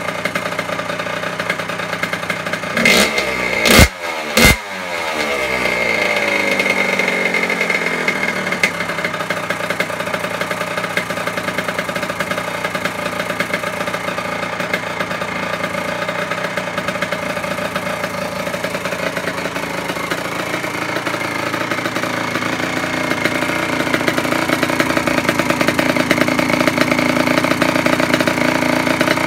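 2002 Kawasaki KX85's single-cylinder two-stroke engine warming up after a cold start. It is blipped hard three times about three to four and a half seconds in, with the revs sagging back down over the next few seconds, then it idles steadily, a little louder near the end.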